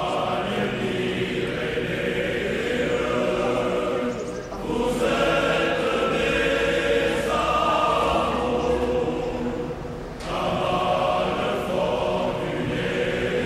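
A choir singing in long, held phrases, with short breaths between phrases about four and ten seconds in.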